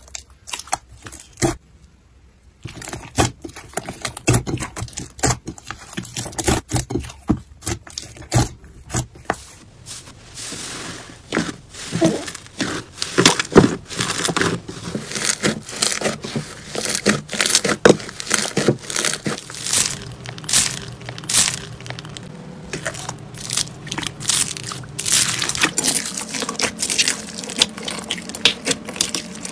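Hands squeezing and pressing slime and foam beads, making a steady run of crisp crackles and squishes, with a brief pause about two seconds in.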